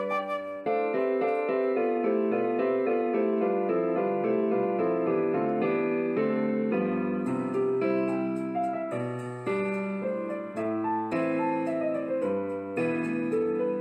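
Background piano music, a melody of separate struck notes over lower chords.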